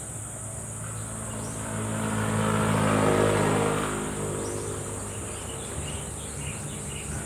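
A motor vehicle passes by on the road: its engine and tyre noise swell to a peak about three seconds in, then fade away.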